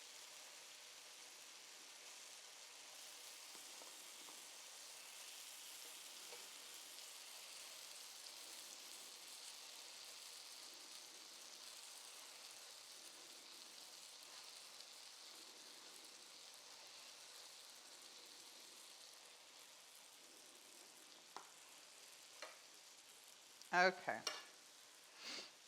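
Pancakes frying in butter in an electric pan, a soft, steady sizzle.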